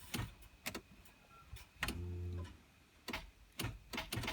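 Holden VT Commodore with a bad starter motor: the starter gives a series of sharp clicks and, about two seconds in, a brief low hum, but it does not crank the engine.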